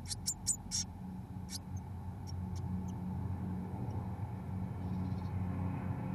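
Blue tit nestlings shifting in a moss nest inside a nest box, making a quick run of sharp scratches and rustles in the first second and a half and a few fainter ones a little later, over a steady low hum.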